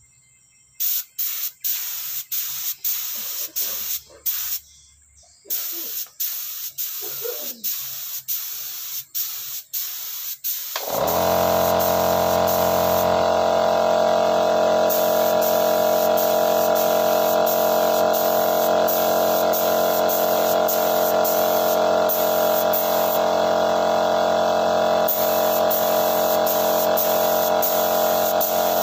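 Paint spray gun hissing in short bursts as the trigger is pulled and released. About eleven seconds in, a machine, likely the air compressor feeding the gun, starts up and runs with a loud, steady hum under the continuing spray bursts.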